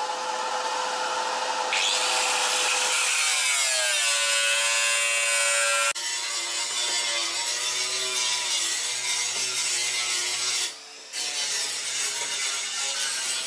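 Power tool cutting, its motor pitch shifting as it works, with an abrupt change about six seconds in and a brief dropout near eleven seconds.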